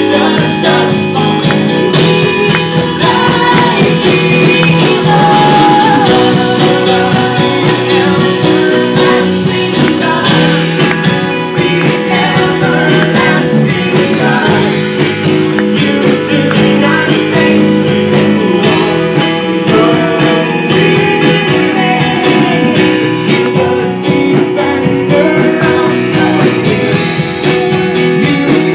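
Worship music: a band holding sustained chords with a singer's voice over them.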